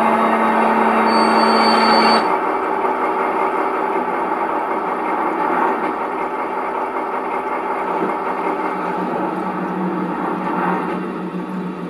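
PIKO G-scale BR 118 model diesel locomotive running on its track and coming to a stop. A steady hum with a high whine cuts off about two seconds in, leaving a rougher, lower running sound that carries on.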